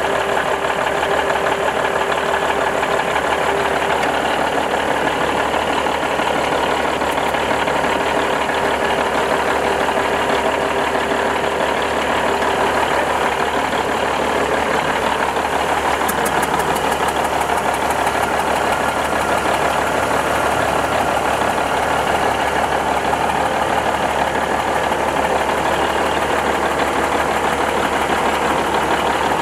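Budd RDC railcar's Cummins NTA-855 turbocharged inline-six diesel idling steadily, newly brought back to life after 11 years sitting idle.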